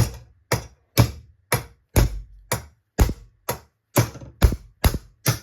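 Hammer blows on metal, about two a second and quickening toward the end, driving a steel piece out of a brass fitting by hammering on a screw set into it.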